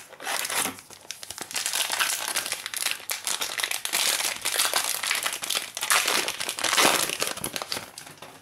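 Foil wrapper of a 2017-18 Prizm basketball card pack crinkling as it is torn open by hand and the cards taken out, a dense crackle that dips briefly about a second in.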